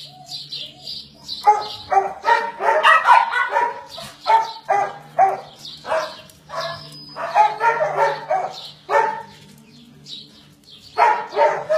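A dog barking in runs of short, sharp barks, about four a second, with pauses between the runs. A steady low hum runs underneath.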